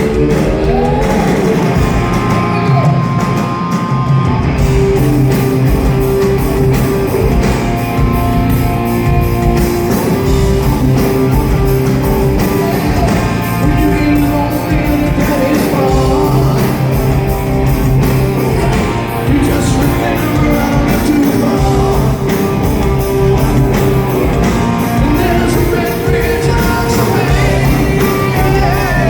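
Live hard rock band playing, with electric guitars over bass and drums.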